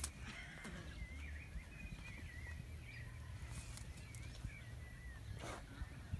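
Calf suckling at a cow's udder: faint wet sucking and slurping.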